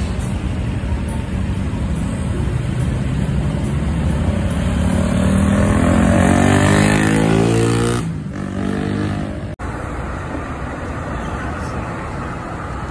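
Road traffic with large vehicle engines running. About four seconds in, one engine accelerates, its pitch rising steadily, until the sound breaks off abruptly at about eight seconds. Steady engine and traffic noise follows.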